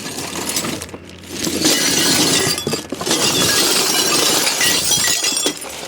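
Glassware clinking and crashing together as a bag of discarded household items is rummaged and shaken, in two dense stretches of rattling from about a second and a half in until near the end.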